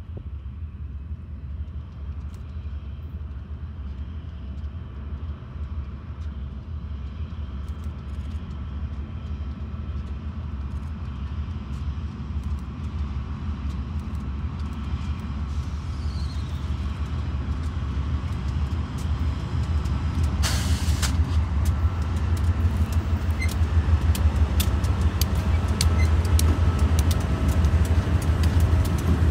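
Diesel freight locomotive's engine rumbling as the train approaches, growing steadily louder. About two-thirds through comes a short hiss, then quick clicking of wheels over rail joints and a faint steady whine as the tank car and boxcars roll past.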